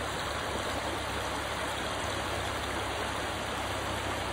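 Shallow creek flowing over rocks: a steady, even rush of water.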